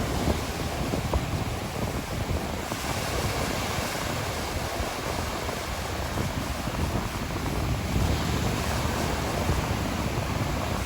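Sea waves washing onto a shore with wind: a steady rushing noise with a low rumble that swells and eases gently.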